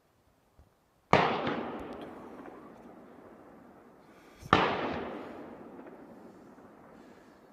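Two hunting rifle shots about three and a half seconds apart, each followed by a long echoing tail that fades over two to three seconds.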